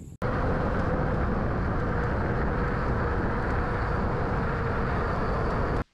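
Steady rush of wind buffeting a chest-mounted camera's microphone, with rolling noise, as a mountain bike is ridden along a paved path. It starts and stops abruptly.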